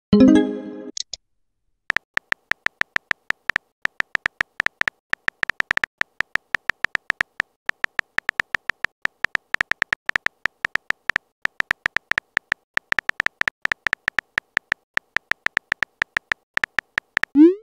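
Rapid on-screen phone keyboard tap clicks, many in quick succession, as a text message is typed out. A short message tone sounds at the very start, followed by a brief pause before the tapping begins.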